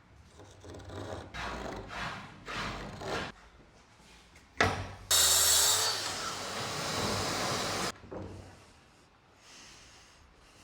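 Wooden panels being slid and rubbed as they are handled, a few rough strokes in a row, then a sharp knock. About five seconds in comes a loud rushing noise that starts and stops abruptly after nearly three seconds.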